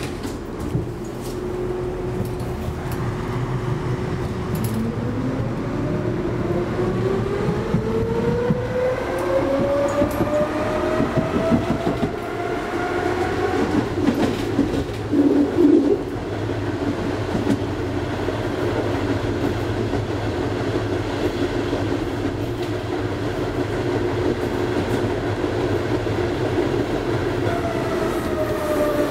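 Konstal 13N tram, a Tatra T1-type car, heard from inside the passenger car as it pulls away: the electric traction drive whines, rising steadily in pitch as the car gathers speed. A louder stretch of wheel clatter on the rails comes about halfway through, then the car runs steadily, and near the end the whine starts to fall as it slows.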